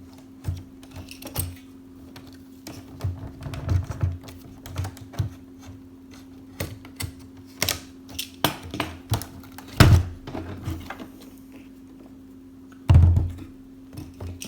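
Hard plastic toy packaging being handled and worked at while the zip ties holding the toy are tackled: irregular clicks, taps and rattles, with two heavier thumps, one about ten seconds in and a longer one near the end. A steady low hum runs underneath.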